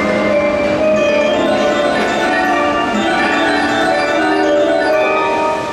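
Train departure melody played over the station platform speakers: a bell-like, mallet-style tune of many short notes that runs on without a break.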